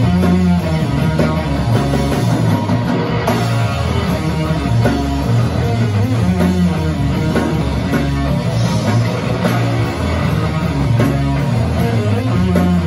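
Rock band playing live, loud and without pause: distorted electric guitars over drums and a heavy bass line.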